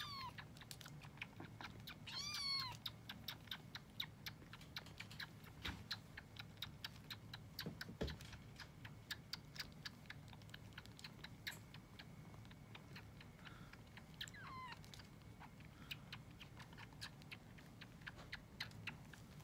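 Kittens suckling milk from a feeding bottle: a steady run of small wet clicks several times a second as a kitten sucks on the nipple. A kitten gives a high mew near the start and again about two seconds in, and a fainter one about three-quarters through.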